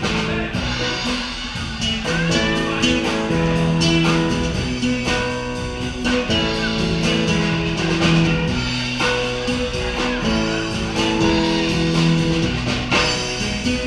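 Live band playing: keyboard chords and strummed acoustic guitar over a steady drum beat.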